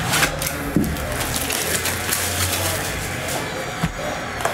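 Cardboard trading-card hobby box being handled and opened on a table: rustling and scraping of cardboard, with a few light knocks.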